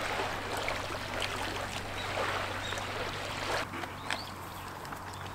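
Outdoor seaside ambience: a steady wash like water lapping, with a few short high bird chirps a little past the middle.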